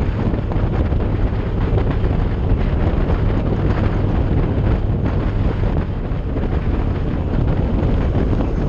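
Steady wind rush on the microphone of a moving motorcycle, with engine and road noise underneath.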